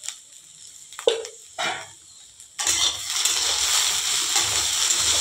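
Okra, onion and green chillies frying in oil in a kadhai. A few spatula knocks and scrapes come in the first half, then a loud, steady sizzle starts about two and a half seconds in as the vegetables are stirred.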